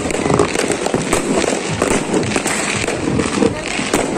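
Fireworks going off continuously: a dense run of overlapping bangs and crackles with no pause.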